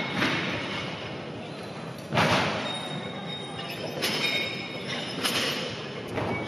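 Steady crowd and hall noise in a large gymnasium. A sudden loud burst comes about two seconds in, with smaller bursts about four and five seconds in.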